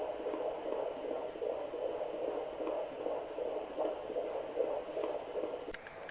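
Fetal heartbeat heard through a handheld fetal ultrasound Doppler's loudspeaker: a fast, rhythmic whooshing pulse over a steady hum. It fades slightly near the end.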